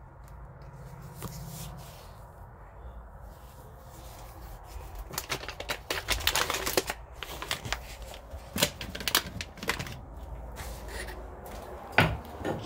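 Handling noise of toiletries being gathered up close to a phone's microphone: irregular clicks, taps and rustling, sparse at first and busier in the second half, with one sharp knock near the end.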